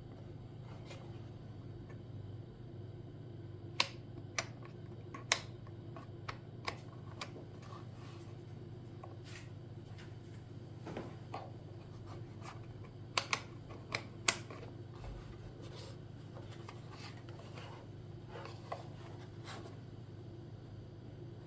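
Scattered sharp clicks and taps of something being handled, some in quick pairs, over a steady low hum.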